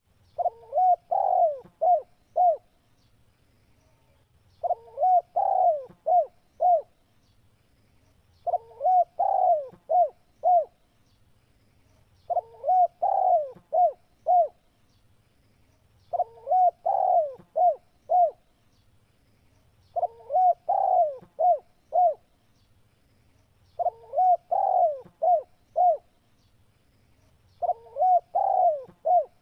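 Spotted dove (tekukur) cooing: the same phrase of several coos, the last few short, repeated about every four seconds, eight times over.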